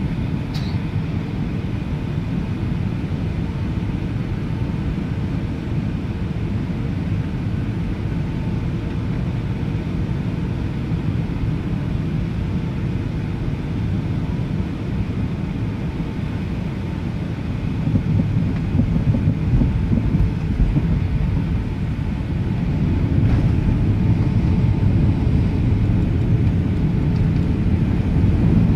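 Jet airliner's engines and rolling rumble heard inside the cabin while taxiing: a steady low rumble with a faint steady whine, growing louder about two-thirds of the way through.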